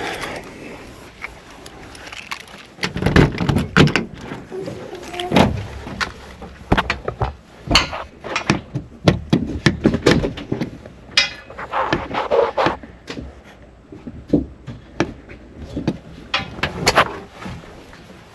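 Irregular metal clicks, clunks and rattles of a camper's keyed latch lock being turned, latched and worked by hand, many sharp knocks in quick succession.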